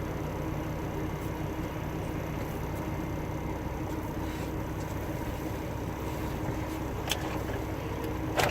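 Semi truck's diesel engine idling steadily, with a brief knock and then a sharper, louder knock near the end.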